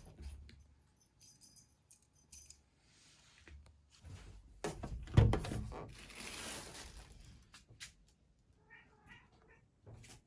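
A kitten mews once briefly near the end, with handling noises around it: light jingling in the first two seconds, then rustling with a loud thump about five seconds in.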